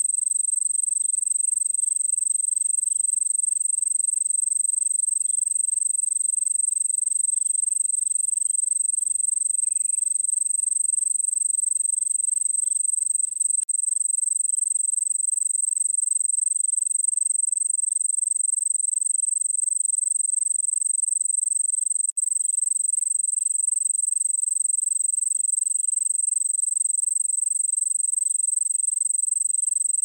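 Crickets calling close by: a loud, steady, high-pitched trill that goes on without a break, dropping out for an instant twice.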